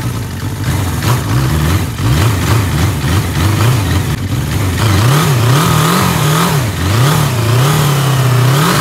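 Sport motorcycle engine being revved in a string of quick blips, its pitch rising and falling again and again, then held at a steady higher speed for about a second near the end before one last rise and drop.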